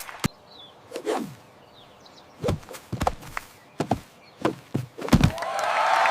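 A series of separate thuds and knocks, with a quick downward swoop about a second in.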